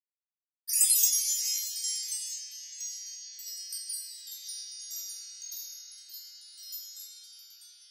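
A shimmering cascade of high wind-chime tones, used as a logo intro sound effect. It starts suddenly about a second in, loudest at the onset, then slowly fades as scattered new tinkling notes ring out.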